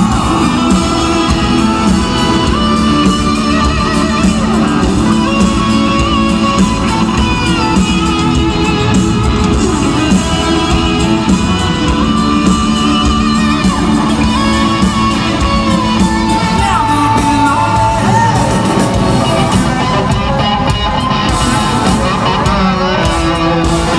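Live country-rock band performance in a large hall: a male lead vocal over guitar and full band, with crowd shouts.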